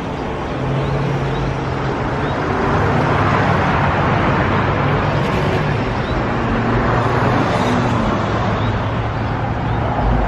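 Street traffic: a motor vehicle's engine hum and tyre noise swelling over the first few seconds, then staying loud.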